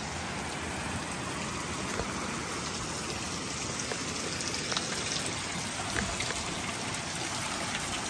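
Water falling in strands and drips from a mossy rock overhang, splashing steadily onto wet rock and leaves below, with a few faint knocks.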